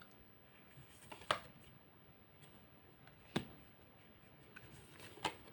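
Fortune-telling cards being handled and laid down: three short sharp snaps about two seconds apart, the middle one the loudest, over a quiet room.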